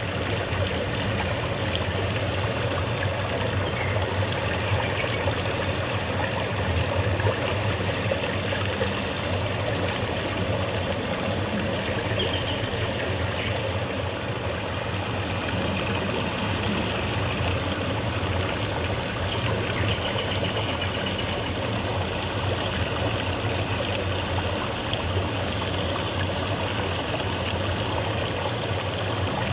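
Steady rushing of running water, even and unbroken, with faint brief high chirps now and then.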